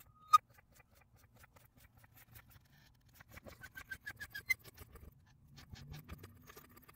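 Floor jack being let down under a Honda CR-V's rear: one sharp metallic clink about a third of a second in, then faint scattered clicks and ticks as the jack arm comes down and the car settles onto its new rear shocks.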